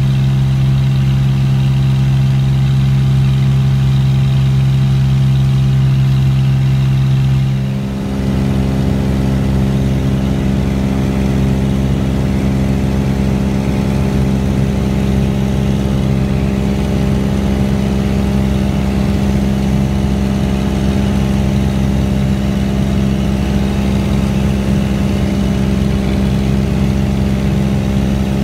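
Cessna 206 seaplane's piston engine and propeller droning steadily in cruise, heard inside the cabin. The pitch of the drone shifts with a brief dip about eight seconds in, then holds steady.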